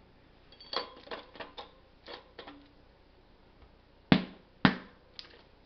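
Metal tools and parts being handled: a run of light clinks and knocks, some ringing briefly, then two loud sharp knocks about half a second apart a little after four seconds in.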